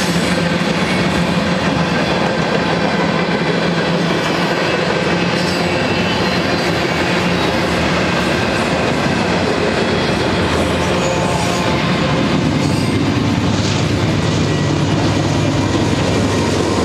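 Freight train cars rolling past close by, steady wheel clatter on the rail joints with some wheel squeal. Toward the end a BNSF GE diesel locomotive comes by near, its low engine drone growing under the wheel noise.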